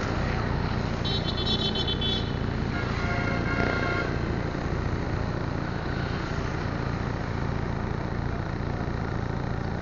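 Steady low rumble of idling engines and street traffic. Two short vehicle horn toots: a higher-pitched one about a second in, and a lower one about three seconds in.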